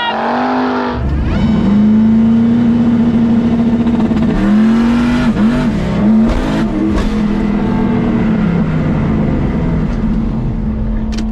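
Turbocharged drag car's engine at full throttle on a pass, heard from inside the cabin, holding a steady high pitch. About halfway through the revs dip and come back a few times as the driver pedals the throttle through a power wheelie, with a few sharp knocks just after.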